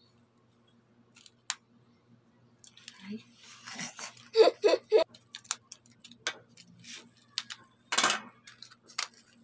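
Clear plastic packet of gel blaster beads crinkling and rustling as it is opened, with sharp crackles about halfway through. Near the end, dry gel beads are sprinkled into a plastic cup of water.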